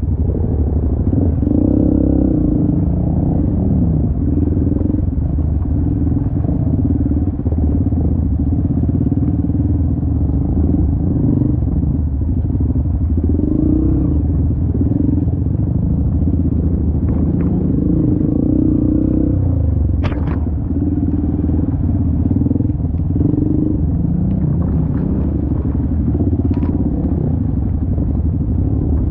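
Single-cylinder trail dirt bike engine running at low speed, its note rising and falling with the throttle as it picks its way over a wet, rocky streambed, with a couple of sharp knocks about two-thirds of the way in and near the end.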